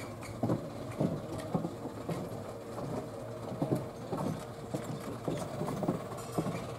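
Chiltern Railways Class 165 diesel multiple unit standing with its engines idling: a steady hum with irregular short knocks. A faint steady whine comes in about halfway through.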